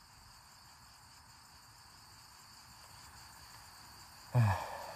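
Crickets chirring faintly and steadily. Near the end there is a short, loud human vocal sound with a falling pitch, with no words in it.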